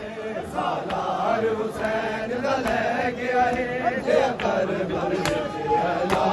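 Men's voices chanting a Punjabi noha (Shia mourning lament), the melody running on between repeats of the refrain, with sharp slaps of chest-beating (matam) about once a second.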